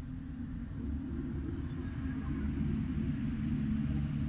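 Low rolling rumble of distant thunder, swelling slightly about a second in.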